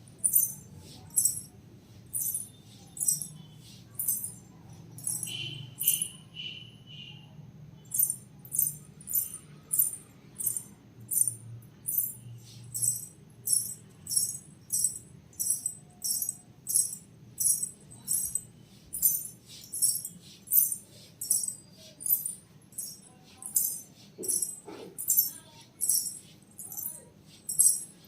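Payal anklets with small bells jingling in a steady rhythm, about two shakes a second, as the feet move; the jingling pauses for about two seconds a quarter of the way in, just after three short high beeps.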